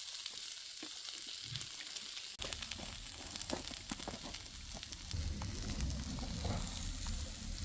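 Bulz, polenta balls with cheese inside, sizzling on a hot grill plate: a steady soft hiss with small scattered crackles. A low rumble comes in about two seconds in.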